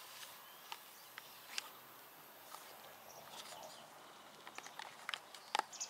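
Quiet outdoor background with scattered light clicks and taps from a plastic cable reel being wound by hand. The clicks come more often near the end.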